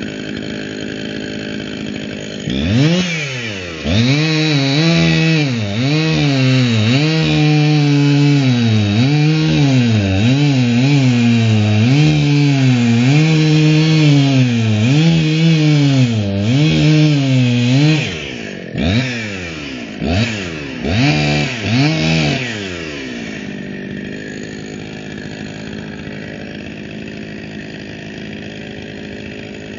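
Two-stroke gas chainsaw idling, then revved up and cutting through a log for about fifteen seconds, its pitch dipping and recovering again and again as the chain bites into the wood. A few short bursts of throttle follow before it drops back to idle.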